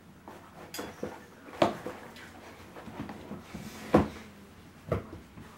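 A cat knocking into boxes and a plastic container as it rummages: a few sharp knocks and bumps, the loudest about four seconds in.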